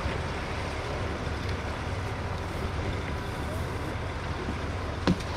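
An engine running steadily with a low, even drone, and a single sharp knock about five seconds in.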